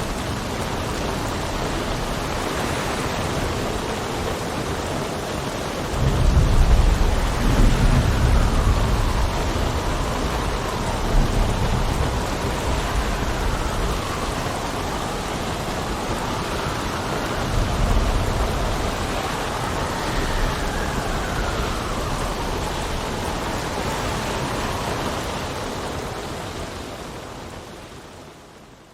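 Sea storm: a steady rush of rain and wind, with rolls of thunder about six seconds in and again about eighteen seconds in. A faint whistle rises and falls in pitch through the middle, and the whole storm fades out near the end.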